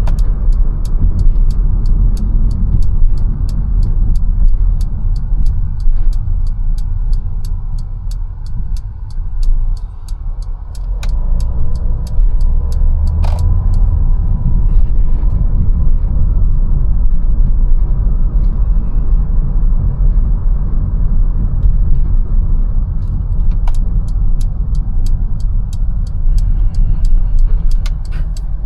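Mercedes-Benz A180 driving in city traffic: a steady low rumble of engine and tyres heard from inside the cabin. Over it the turn-signal indicator ticks about three times a second for the first dozen seconds, stops, and starts again near the end.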